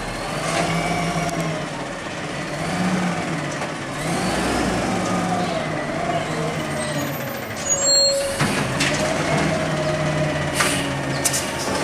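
Peterbilt 320 garbage truck's diesel engine running as the truck moves slowly, its pitch rising and falling with the throttle. About eight seconds in there is a sudden louder moment with a short high squeal, typical of the truck's air brakes.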